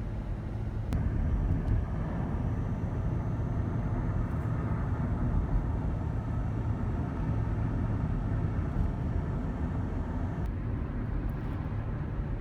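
An engine running steadily while under way: a low hum over a constant rushing noise, growing a little louder about a second in.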